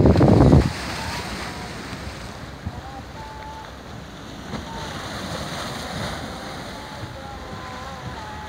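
Wind buffeting the microphone hard for the first split second, then cutting off to a steady hiss of sea and wind with water lapping. A few faint short high tones come and go over the hiss.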